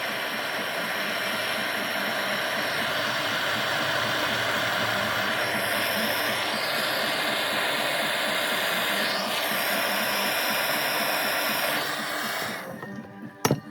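Electric grinder spinning up, running steadily with a loud hissing whine for about twelve seconds, then winding down near the end, followed by a few sharp clicks.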